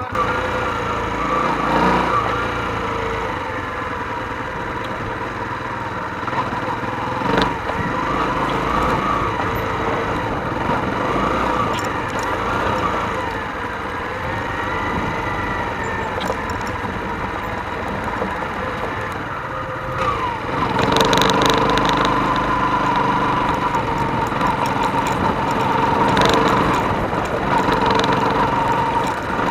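Hyosung Karion motorcycle engine under way, its pitch rising and falling again and again as it accelerates and shifts through the gears. About two-thirds of the way in it gets louder and settles into a steadier run.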